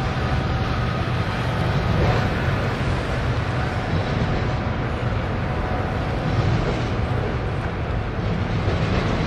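Double-stack container freight train rolling steadily across a steel girder bridge: a constant low rumble of wheels on rail, with faint thin squeals above it.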